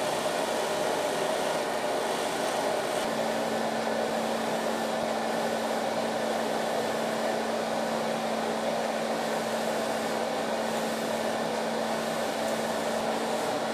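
Handheld hair dryer blowing steadily while the hair is lifted with a brush. A steady hum joins the airflow noise about three seconds in.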